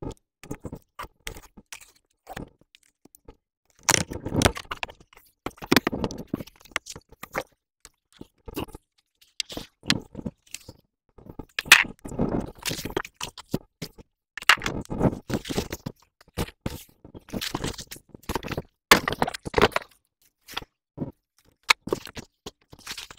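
A large cardboard shipping box being opened and handled: irregular scraping, crunching and crackling of cardboard in bursts with short pauses.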